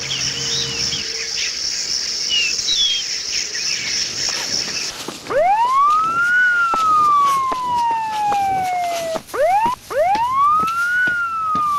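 A steady high-pitched buzz with short chirps for the first few seconds. Then, from about five seconds in, a wailing emergency-vehicle siren sweeps twice, each wail rising quickly and then falling slowly.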